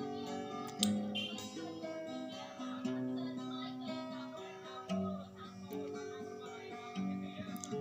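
Instrumental music led by acoustic guitar, its held chords changing every second or so.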